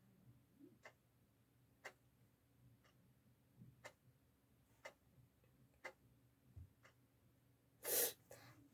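Faint clock ticking steadily, about once a second. Near the end comes a short, louder breath.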